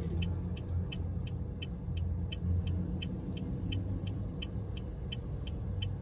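Electronic signal beeping: short, high, evenly spaced beeps, about three a second, over a steady low rumble.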